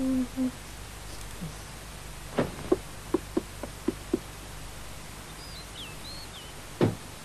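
Cartoon sound effects over a quiet background: a low hummed note dies away at the start, then a quick uneven run of about seven short taps, a few faint high bird chirps, and a single knock near the end.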